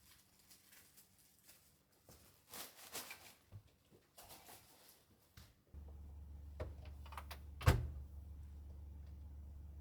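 Faint indoor handling noises, light rustles and small clicks, then a steady low hum that starts suddenly about six seconds in, with a single sharp thunk shortly after.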